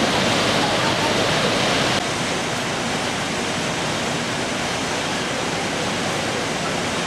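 Steady rushing noise spread evenly from deep to very high, dropping slightly in level about two seconds in.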